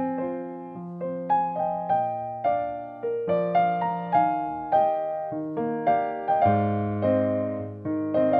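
Piano music: single notes struck about twice a second over held low chords, each note fading after it is struck.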